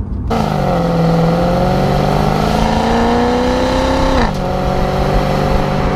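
Maserati Quattroporte's naturally aspirated Ferrari-derived V8, heard close at the exhaust tailpipe under acceleration: the engine note climbs steadily in pitch, drops suddenly at a gear change about four seconds in, then runs on evenly.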